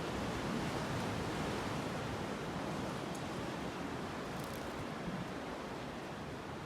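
Steady rushing outdoor noise of wind and harbour water, with no distinct events apart from a few faint small ticks in the middle.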